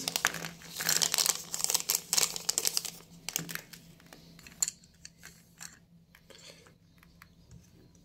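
Foil pouch crinkling and rustling as it is opened and shaken out, densest in the first three seconds. After that, scattered light taps and clicks.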